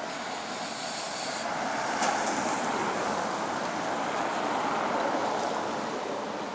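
Road traffic hiss: a vehicle's tyres on a wet road, a steady swish that swells and then eases off, with a single small tick about two seconds in.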